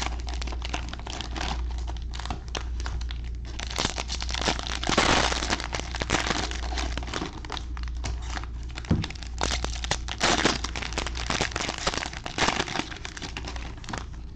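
Cellophane-wrapped trading card packs crinkling and crackling in gloved hands as they are handled and stacked, in irregular rustles and sharp crackles.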